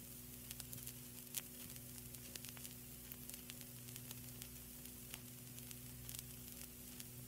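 Faint steady hiss and electrical hum with scattered small crackles: the recording's noise floor after the music has ended.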